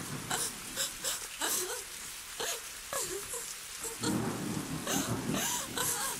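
Rain and thunder sound effect, a steady hiss with low rumbles, under a wordless voice wailing in slow rising and falling glides.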